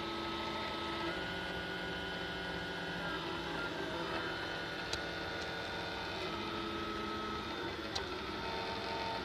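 Desktop filament 3D printer printing: its motors whine in steady tones that change pitch every second or two as the print head and bed move. Two short clicks sound about five and eight seconds in.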